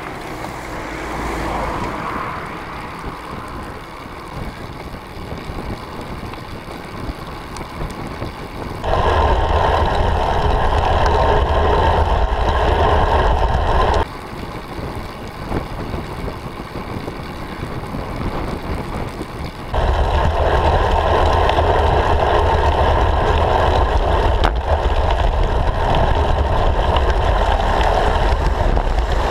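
Wind rushing over a bicycle-mounted camera's microphone while riding, with tyre and road noise. It steps abruptly louder with a deep rumble about nine seconds in, drops back about five seconds later and rises again near twenty seconds.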